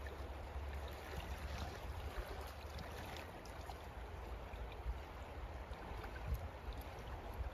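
River water running steadily, with a low rumble underneath.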